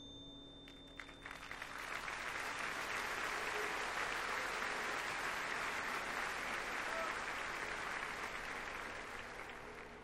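Large stadium crowd applauding after the drum corps' music stops; the applause builds over the first couple of seconds, holds, then fades near the end.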